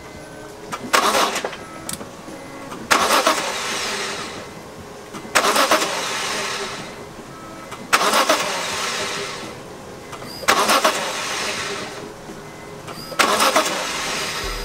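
BMW E46 M3's S54 inline-six being cranked over by the starter in six short bursts, about every two and a half seconds, each cut off after a second or so. This is the repeated brief cranking used to prime a newly installed oil cooler with oil.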